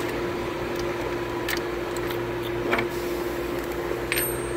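Three light metallic clicks as a fuel injector is worked up and out of a Caterpillar C15 diesel cylinder head by hand, over a steady background hum.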